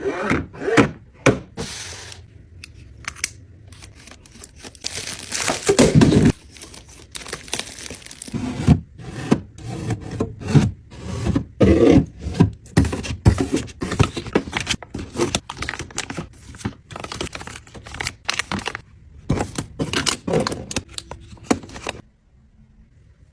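Restocking handling sounds: many quick clacks and knocks of containers and items being set down, with crinkling and tearing of packaging, stopping suddenly near the end.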